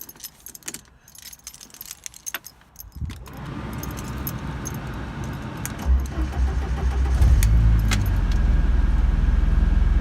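Keys jangle at the ignition of a Mk5 Ford Escort, then the engine is turned over. It catches about six seconds in, revs up briefly and settles into a steady idle, starting readily.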